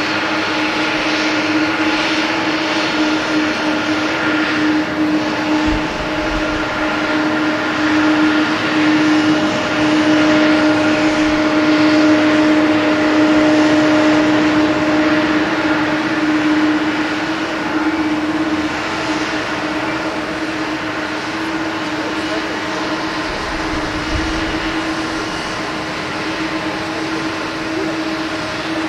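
Boeing 747-400D's four turbofan engines at takeoff climb power: a steady jet roar with a droning tone, easing off slightly in the second half as the airliner climbs away.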